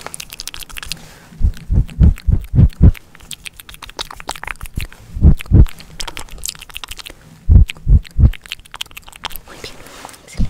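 Close-miked ASMR crunching and biting in three short clusters: first about five heavy crunches, then two, then three. Faint crackling runs between the clusters.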